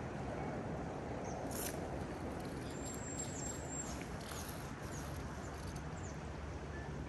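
Steady rush of a swift river flowing past the bank, with a few faint, brief high-pitched whistles and ticks over it.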